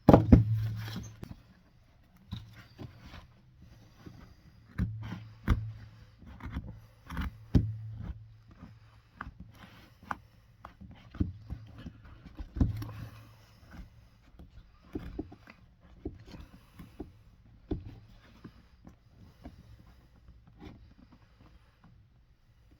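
Irregular knocks, taps and scrapes of hand tools working on a leather boot during resoling, with one sharp loud knock at the start.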